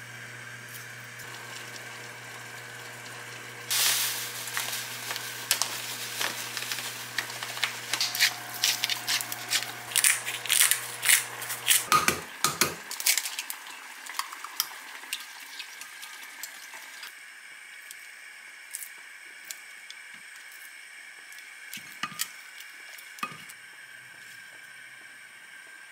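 Kitchen scissors snipping raw chicken breast into strips: a run of sharp clicks and snips that grows denser, ending with a couple of dull knocks about halfway through, then only a few light clinks.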